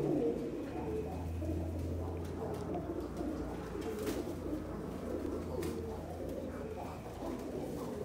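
Domestic Iraqi pigeons cooing continuously, many calls overlapping. A low steady hum runs beneath them from about a second in until near the end.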